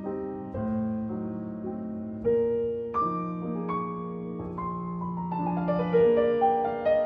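Background piano music: a slow run of single notes and chords, each struck and left to ring.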